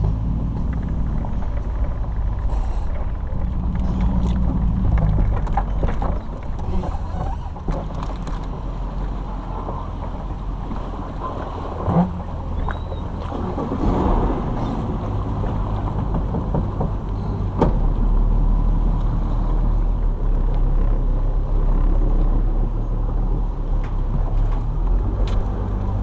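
Engine running steadily with a low rumble during a boat launch, the engine note shifting a few times, with wind noise on the microphone and a few scattered knocks.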